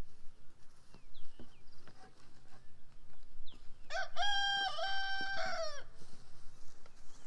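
A rooster crows once, about four seconds in, a single call of nearly two seconds that climbs, holds and trails off. Faint small-bird chirps and a few light knocks sound around it.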